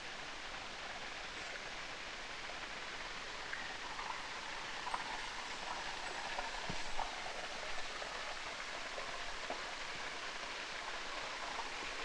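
Steady rushing of river water, an even hiss with no break.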